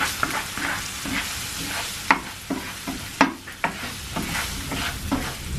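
Onion, garlic and ginger frying in oil in a pan with a steady sizzle, while a spoon stirs them, knocking and scraping against the pan at irregular moments.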